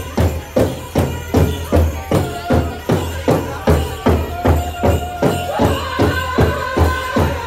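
A powwow drum group plays a large drum, struck in steady unison beats a little under three times a second. High held singing voices join over the beat from about the middle on.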